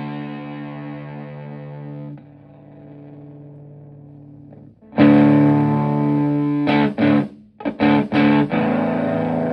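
Electric guitar (Stratocaster) played through a germanium Fuzzrite fuzz pedal into a Twin Reverb-style amp. A fuzzed chord rings out and fades, a new chord is struck about halfway through, then comes a few short choppy stabs, and a chord is left ringing.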